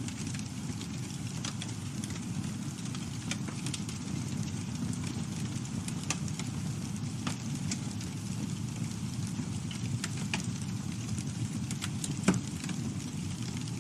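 Campfire burning: a steady low rumble of flames with scattered crackles and one louder pop about twelve seconds in.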